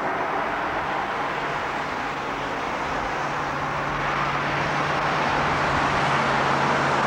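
Steady road and traffic noise of motor vehicles, with a low engine hum that grows louder through the second half.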